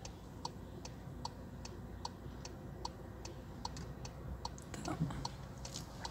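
Car turn-signal indicator ticking steadily, about two and a half clicks a second, over a low steady hum inside the running car.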